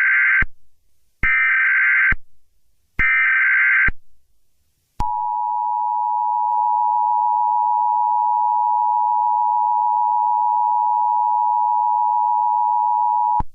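Emergency Alert System data header: three short screeching bursts of digital code, then the two-tone attention signal, a steady dual tone held for about eight seconds, announcing a new warning broadcast.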